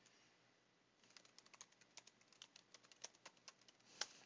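Computer keyboard typing, faint: a quick irregular run of keystrokes starting about a second in, ending with one louder keystroke near the end, the Enter key that runs the typed command.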